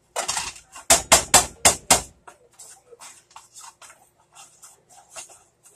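Wooden spoon knocking and scraping against a black pan while hamburger is stirred and broken up. There is a quick run of about five sharp knocks around a second in, then lighter, scattered scrapes and taps.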